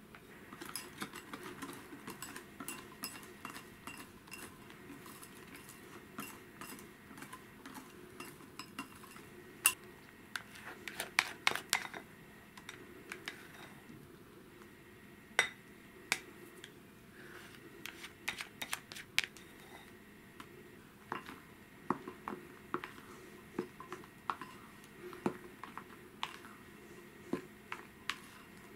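A wire whisk and a spatula clinking, tapping and scraping against glass mixing bowls as whipped cream is folded into melted chocolate. The clinks come irregularly, with the sharpest ones about ten to twelve seconds in and again around fifteen seconds.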